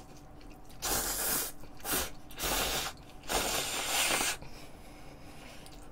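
A person slurping ramen noodles in four separate slurps, the last one the longest.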